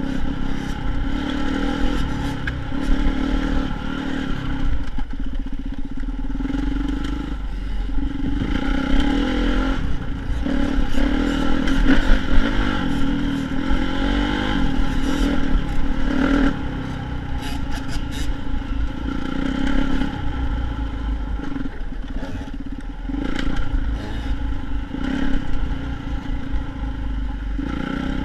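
Dirt bike engine running and revving up and down in pitch, with scattered clattering knocks.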